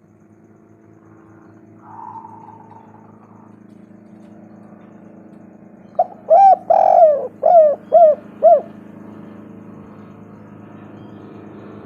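Spotted dove cooing: one phrase of about six short cooing notes, one of them longer and rougher, about six seconds in, over a steady low hum.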